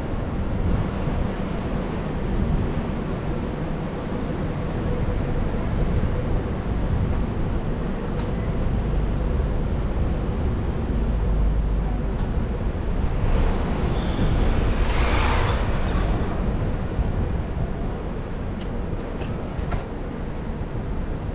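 Wind buffeting a GoPro's microphone while riding a bicycle, a steady low rumble and rush of air. A brighter hiss swells for a couple of seconds past the middle.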